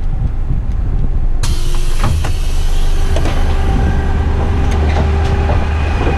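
Rubbish truck's engine idling, heard from the cab. About a second and a half in, the cab door is opened and a sudden rush of outside noise comes in, with a few knocks and clicks from the door and the driver climbing out.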